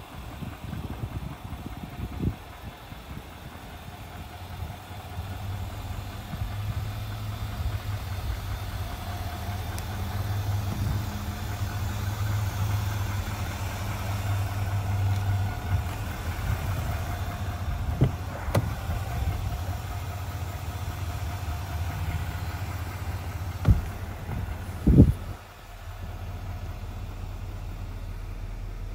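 Chevrolet Silverado 3500HD's Duramax turbodiesel V8 idling with a steady low hum. Near the end there are a couple of loud thumps, the cab door shutting, and after them the idle is heard muffled from inside the cab.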